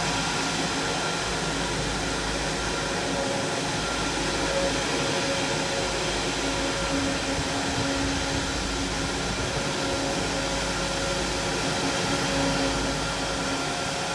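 Boeing 777-200ER's two turbofan engines running steadily at taxi power: a broad rush with several held whining tones over it.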